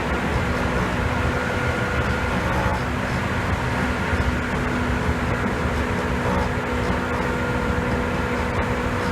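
Seibu 2000 series electric train running at a steady speed, heard inside motor car KuMoHa 2413: continuous rumbling running noise with a steady hum in several pitches on top. The hum is the abnormal noise of this car, which the uploader suspects is resonance.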